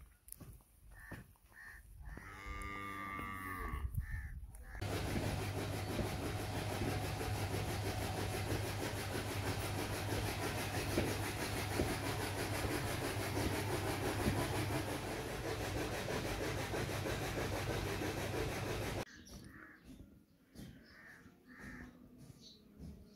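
A cow or buffalo lows once, one long call about two seconds in. Then a loud steady rushing noise with a low hum cuts in and runs for about fourteen seconds before stopping suddenly.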